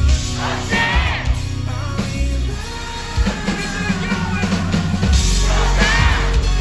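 Live pop-rock band playing, with singing over drums and bass.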